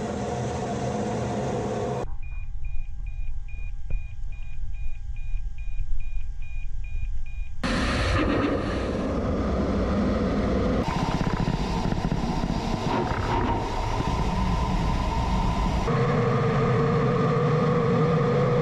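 Cockpit noise of a Su-25 attack jet in flight: the twin turbojet engines and rushing air make a loud, steady rumble. For several seconds a little after the start, a rapid beeping tone repeats about two to three times a second over a lower rumble.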